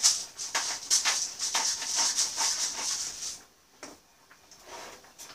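Pepper grinder twisted over a skillet, a quick run of gritty crunching strokes as peppercorns are cracked, stopping a little over three seconds in; a couple of faint taps follow as it is set down.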